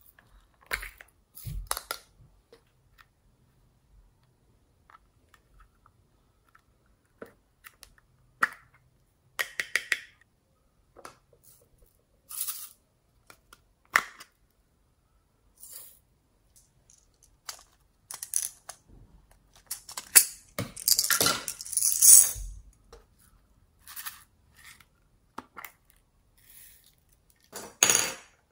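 Small hard plastic containers being handled, opened and tapped: scattered light clicks and knocks, with a busier run of clattering plastic about two-thirds of the way through and another short clatter near the end.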